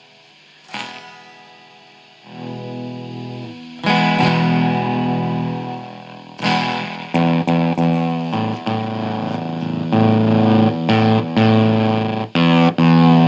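Electric guitar played through a homemade breadboard fuzz circuit into an amp, with the circuit's gate control turned partly up: distorted chords ring out at first, then from about halfway come choppy stabs that cut off sharply between notes.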